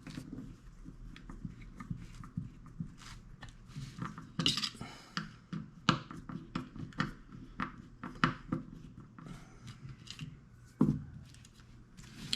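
Irregular small clicks and taps of hand tools on a chainsaw as a screw is undone and a part is worked loose, with a few louder knocks scattered through.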